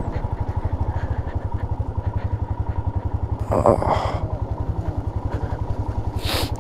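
Motorcycle engine running at low revs with an even, rapid thumping beat of about ten pulses a second, as the bike is ridden slowly. A short voice cuts in about halfway through.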